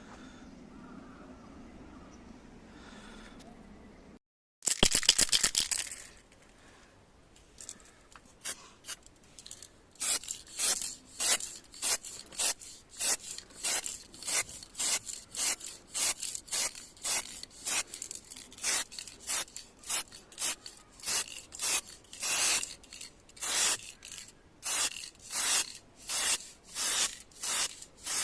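Hand sanding of bodywork on a car panel with sandpaper: even back-and-forth rasping strokes, about two a second. A short loud hiss comes about five seconds in, before the strokes start.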